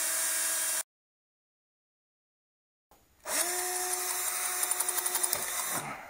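Bosch cordless drill running at a steady speed while drilling out a stripped screw in the two-stroke's stator plate. It stops abruptly just under a second in, then spins up again about three seconds in and runs for nearly three seconds, with a rapid light chatter toward the end before it stops.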